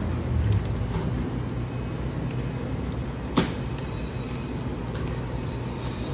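Steady indoor shop background noise: a low rumble and hum of the room, with one sharp click about three and a half seconds in.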